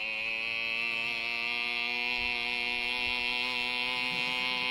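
A boy imitating a Yamaha motorcycle engine with his voice, holding one steady, unbroken tone like an engine idling.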